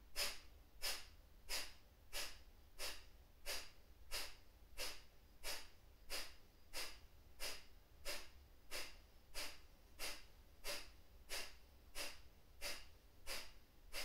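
Kapalabhati yogic breathing: a steady train of short, forceful nasal exhalations, evenly paced at about one and a half puffs a second, each a sharp hissy puff.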